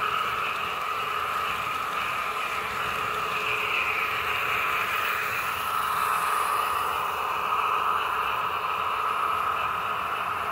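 Märklin H0 model train running along the track, a steady whirring hum of its motor and wheels on the rails.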